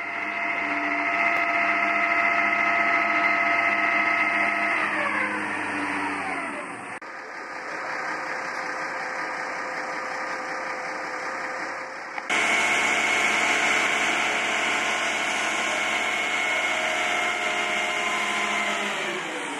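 Machinery launching a boat, a Deutz tractor with a gantry hoist, running with a steady multi-tone whine that winds down in pitch about five seconds in. After a break it runs steady again and winds down once more near the end.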